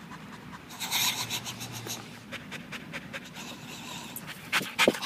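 A dog panting in quick, rhythmic breaths, loudest about a second in, with a few louder, sharper breaths near the end.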